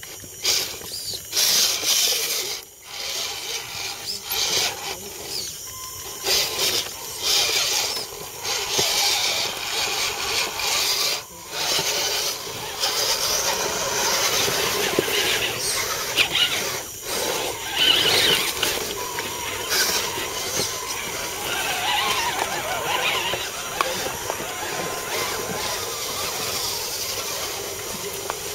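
Electric motors and gear trains of radio-controlled scale off-road trucks whining in repeated stops and starts as they crawl over rocks and roots.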